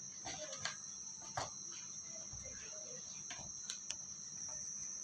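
Faint kneading and handling sounds as a hand works potato dough in a bowl: a few soft, scattered taps and knocks against the bowl and spatula. Under them runs a steady high-pitched trill in the background.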